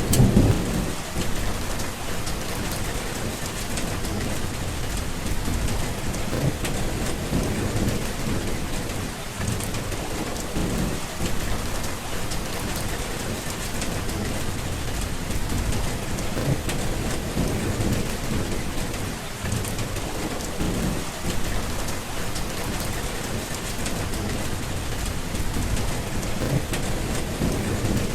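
Steady rain with low rolls of thunder that swell and fade, the strongest right at the start.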